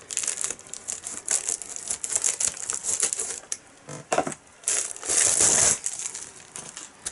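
Plastic mailing bag being handled and opened, crinkling and rustling in irregular bursts, with a longer, louder rustle about five seconds in.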